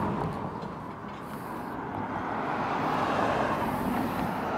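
Road traffic: a motor vehicle passing by, its noise swelling to a peak about three seconds in and then fading.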